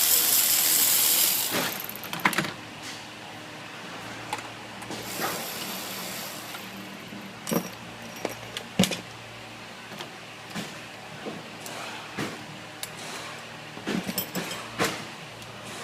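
A loud hiss that cuts off about a second and a half in, then a scattered series of sharp metallic clicks and clinks from hand tools and engine parts being handled.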